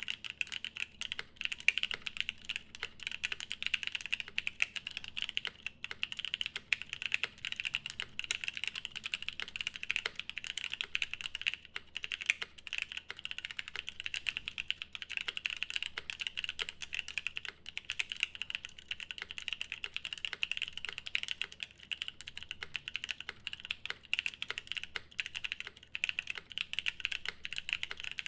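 Continuous fast typing on a custom Unnamed75 mechanical keyboard with a polycarbonate plate, lubed Paco switches and GMK keycaps: a dense, unbroken run of keystroke clacks.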